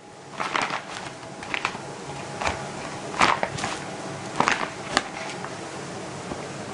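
Kitchen utensils being handled: irregular light clicks and taps, about six in all, over a faint steady hum.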